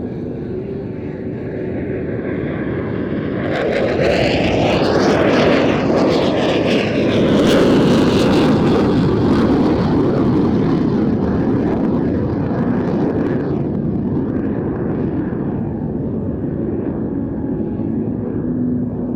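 Eurofighter EF2000 jet with its twin Eurojet EJ200 turbofans making a display pass. The jet noise swells to its loudest several seconds in, with a whine that falls in pitch as the jet goes by, then eases to a steady rumble.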